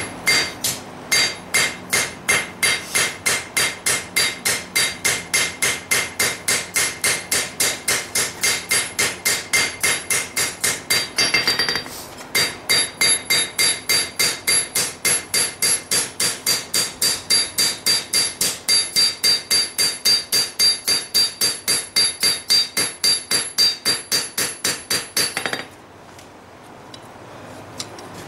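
Hand hammer forging a bevel into a hot lawn mower blade on an anvil: quick, even ringing blows, about three or four a second. There is a short break about twelve seconds in, and the hammering stops a couple of seconds before the end.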